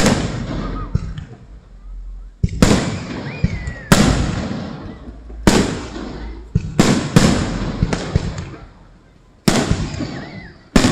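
Aerial fireworks shells bursting overhead: about eight sharp booms at uneven intervals, each trailing off in a rumble of echo over a second or two.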